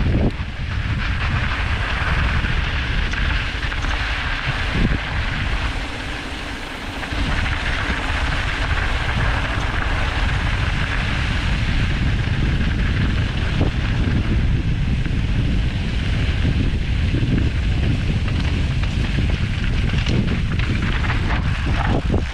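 Wind rushing over the microphone on a fast mountain-bike descent, with the tyres crunching over loose gravel and an occasional knock of the bike hitting rocks. The low buffeting eases briefly about six seconds in.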